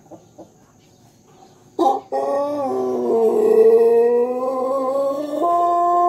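Pelung rooster's long crow: after a couple of short calls, the drawn-out crow begins about two seconds in, sags lower in pitch, then steps up about five seconds in and is held on one note.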